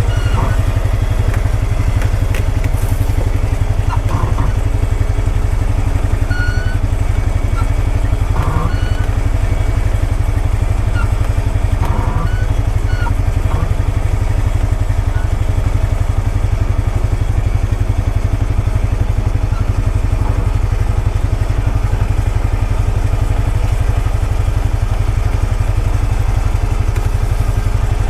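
Honda Pioneer 520 side-by-side's engine running steadily, with a few brief knocks and clatters over it.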